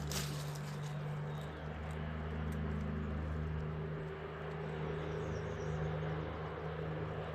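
A steady low mechanical hum, like a machine running nearby, holding even throughout.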